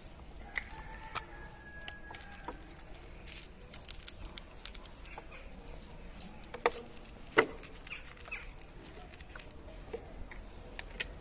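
A cat crunching dry kibble from a plate, a run of short sharp clicks, with one louder tap about seven seconds in. Faint bird calls sound in the background.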